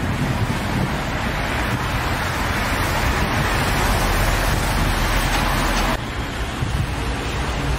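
Wind buffeting the microphone over steady street traffic noise, an even rushing hiss; the sound changes abruptly about six seconds in.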